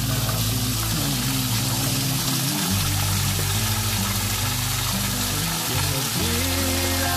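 Water from a small spring falling down an earth bank and splashing onto rocks, a steady hiss, heard under background music with sustained low notes.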